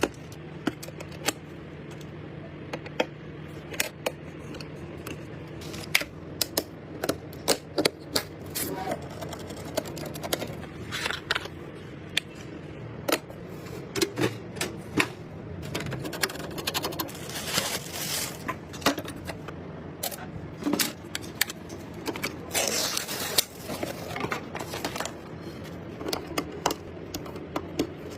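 Computer parts being handled and fitted together during a PC build: irregular plastic and metal clicks, clacks and scrapes, several a second at times, over a steady low hum.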